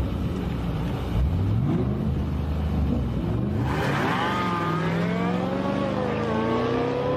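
Drag-racing cars, one a Ford Mustang Shelby GT500, accelerating hard down the strip. For the first half the engine note climbs in a series of quick rising sweeps as the car shifts up. From about halfway a louder, steadier engine note takes over and climbs slowly.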